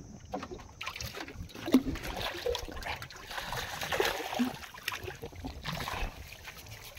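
Water splashing as a hooked fish thrashes at the surface beside a wooden boat and is scooped up in a landing net, busiest around the middle.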